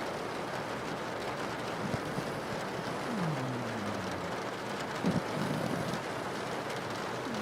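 Steady rain on a window, with a pug's snoring over it: short low snores about five seconds in and again near the end, and a low tone falling in pitch a little past three seconds.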